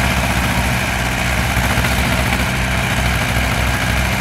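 Farm tractor diesel engine idling steadily, a low even drone.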